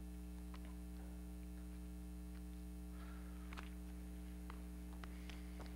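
Low steady electrical hum with faint rustles and light ticks of Bible pages being leafed through to find a passage.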